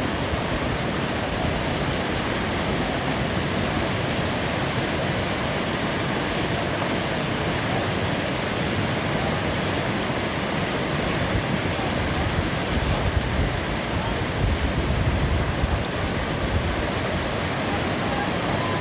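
Whitewater of the Seti River rushing steadily, an even, unbroken noise of river rapids.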